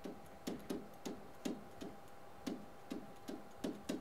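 Pen tapping against an interactive whiteboard while handwriting: a run of irregular light knocks, two or three a second, over a faint steady hum.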